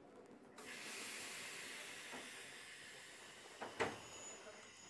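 Sudden hiss of compressed air being let out aboard a Hakone Tozan Railway Moha 1 electric car standing at a station, fading slowly, followed by a sharp click near the end.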